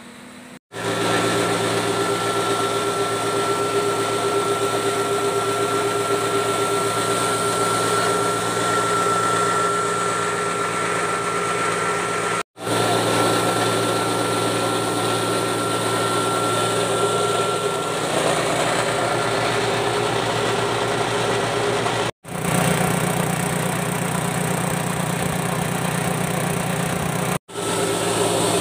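Motor-driven grinding mill running steadily with a constant high whine, grinding rice husks fed in from its hopper into bran. The sound is broken by three brief dropouts.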